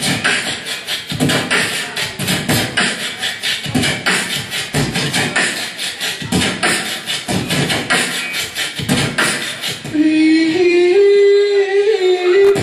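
Beatboxing into a handheld microphone: a fast, steady stream of percussive mouth sounds. About ten seconds in it switches to one long held vocal note that slides slightly upward, louder than the beats.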